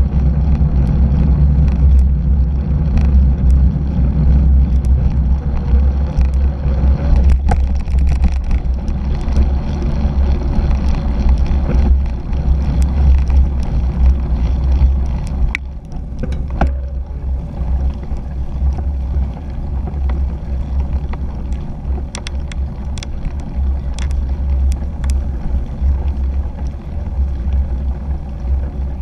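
Steady low wind buffeting and road rumble on a handlebar-mounted GoPro on a cyclocross bike rolling over pavement, dirt and grass, a little louder in the first half. Occasional sharp clicks and knocks from the bike jolting over bumps, several of them in the last third.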